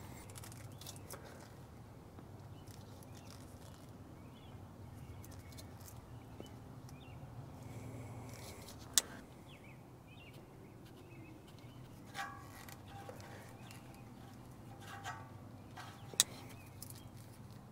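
Faint handling sounds of electrical wire, split wire loom and a plastic crimp connector being worked by hand: small clicks and rustles, with two sharp clicks, about nine seconds in and near the end. A low steady hum runs underneath.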